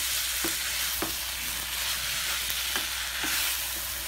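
Spaghetti being tossed and stirred in a hot frying pan with a plastic pasta fork: a steady sizzle from the pan, with a few light clicks of the utensil against the pan.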